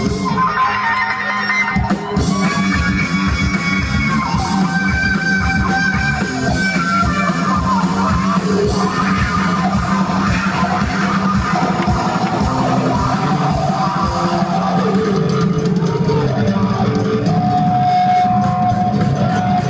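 A live band playing an instrumental passage with drum kit, bass guitar and electric guitar, heard from within the audience. Near the end a single high note is held steadily.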